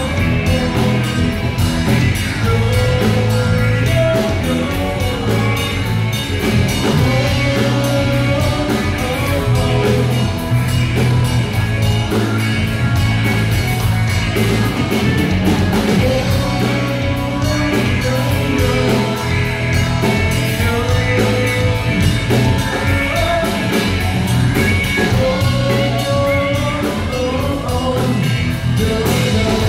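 Live rock band playing: a male singer over two electric guitars, electric bass and a drum kit, loud and steady throughout.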